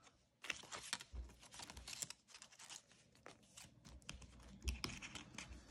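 Paper banknotes and cash envelopes being handled close up: soft rustling and crinkling of paper with many quick, irregular small crackles.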